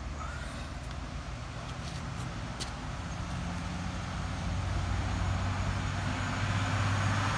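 Low, steady engine hum, growing louder over the last few seconds.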